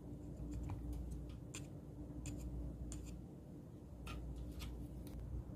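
Faint, scattered clicks and taps of small parts and tools being worked, as a DVR's motherboard is pried free and a metal plate bent, over a steady low hum.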